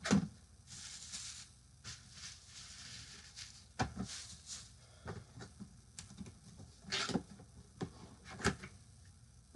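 A large box and its packing being handled: scattered knocks and taps, with a couple of scraping rustles in the first few seconds.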